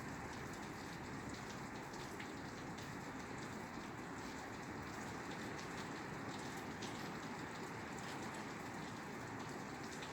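Steady rain falling on a roof, a constant hiss with many small drop taps.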